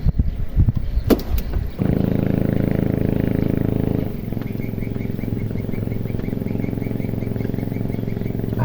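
A few knocks, then a small boat engine starts abruptly about two seconds in. It runs briefly at higher speed, then settles to a steady, slightly quieter running hum about four seconds in.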